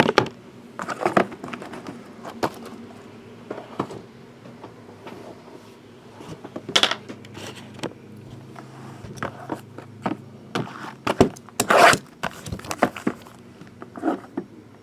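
Cardboard trading-card boxes handled on a table: scattered knocks and scrapes as they are slid, stacked and set down, with the loudest clusters about seven and twelve seconds in.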